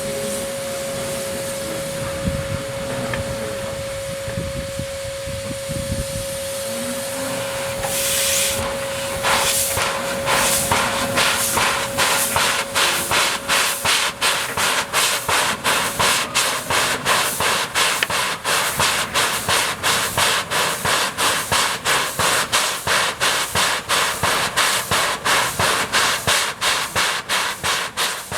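JS-class 2-8-2 steam locomotive starting away with its train: a burst of steam hiss about a third of the way in, then exhaust chuffs that begin slowly and quicken to two or three a second.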